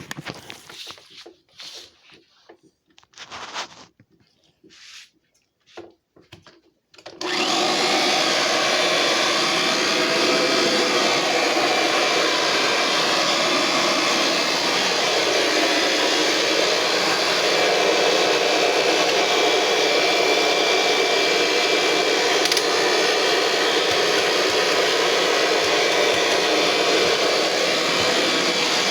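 A few brief scattered sounds, then about seven seconds in the Kirby Sentria G10D upright vacuum cleaner's motor switches on suddenly and runs steadily and loudly, its tone shifting slightly about halfway through.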